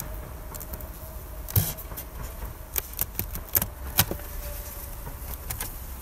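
Beehive cover being lifted off the hive box: a sharp knock about one and a half seconds in, then a run of clicks and knocks a little later, over a faint steady hum.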